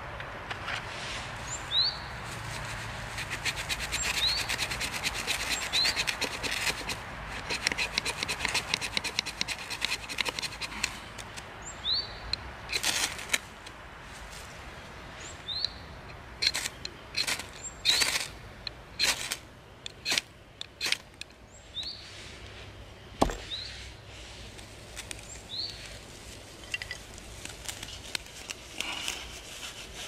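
Dry grass tinder rubbed and worked between the hands in a dense, fast scraping for the first ten seconds or so. From about twelve seconds in, a ferrocerium rod is struck with a scraper a dozen or so times, each a sharp rasping scrape, to throw sparks into a grass tinder nest that is still damp. A small bird gives short rising chirps every couple of seconds.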